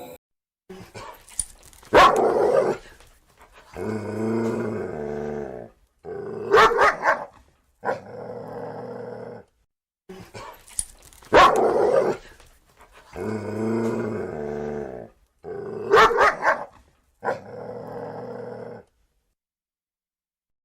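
A carnivore barking and growling: two sharp, loud barks, each followed by a longer low pitched growl. The same recording plays twice in a row.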